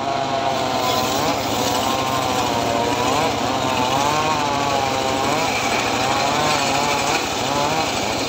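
Homemade engine-driven circular saw running and ripping dry acacia boards: the blade's whine wavers up and down in pitch as the hard wood loads it, over the engine's steady running.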